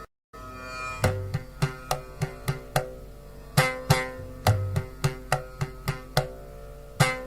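Instrumental Indian devotional music: sharp plucked string notes in a steady run over a sustained drone, with deep drum strokes about a second in and again past four seconds. The sound drops out for a split second right at the start.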